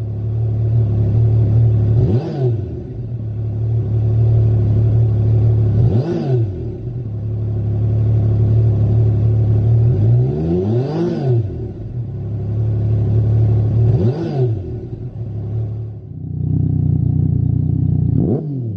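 Yamaha MT-09 Tracer's 847 cc inline three-cylinder engine idling through a Lextek RP1 aftermarket silencer, blipped about five times, each rev rising and dropping back to idle within a second or so.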